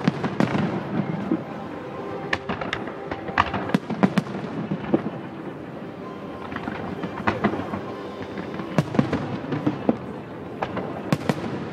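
Fireworks going off: a rapid, irregular series of sharp bangs and crackles, densest near the start.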